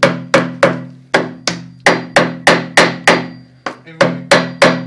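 Quick, steady series of sharp knocks, about three a second, each ringing briefly, over a steady low hum. Two short gaps break the rhythm, one near the middle and one about four seconds in.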